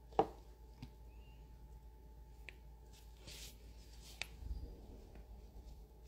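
Quiet room tone with faint handling sounds from gloved hands working a nail tip and top-coat brush: a brief louder sound just after the start, then a few small clicks and a short soft hiss.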